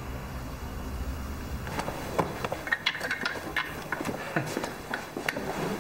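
Low steady hum, then from about two seconds in a run of irregular knocks and clicks.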